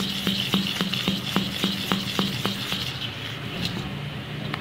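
Metal spoon stirring thick paniyaram batter in a stainless steel bowl while jaggery syrup is mixed in, knocking against the bowl's side about three to four times a second. The knocks thin out about two and a half seconds in.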